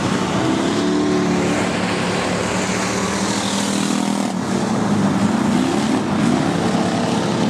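Factory Stock race car engines running around a dirt oval, several engine notes overlapping, their pitch rising and falling as the cars go by.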